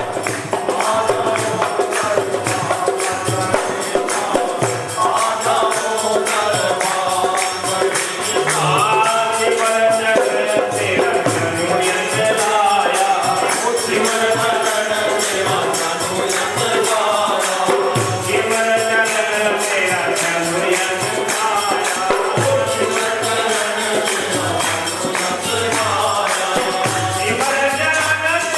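Hindu devotional kirtan music: voices chanting a bhajan over a steady, fast jingling percussion rhythm.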